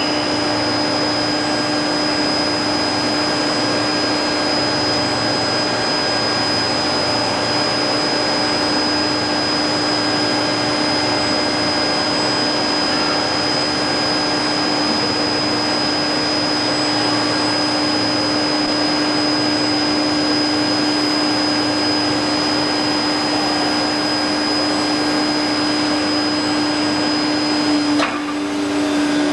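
Steady hiss of production machinery, with a constant low hum and a faint high whine over it. Near the end the noise dips briefly and the hum shifts slightly in pitch, then carries on.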